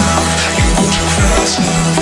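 Background electronic music with a fast beat: deep kick drums falling in pitch about twice a second over a steady bass line and crisp hi-hats.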